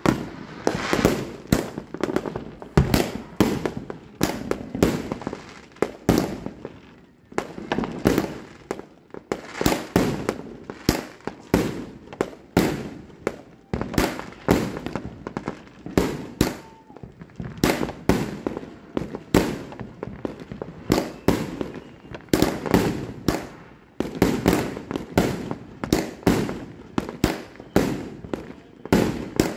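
Dream Keeper 100-shot salute firework cake firing shot after shot, each a sharp bang, about two a second. There are brief lulls about seven seconds in and again near 24 seconds.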